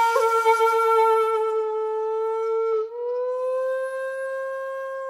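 Solo flute-like wind instrument playing two long held notes, breathy at the start, the second a little higher after a short upward slide about three seconds in.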